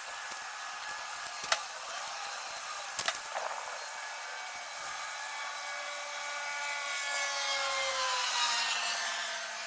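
A power tool running with a rubbing, abrasive sound and two sharp clicks in the first few seconds. From about seven seconds in, its motor winds down and the pitch falls steadily.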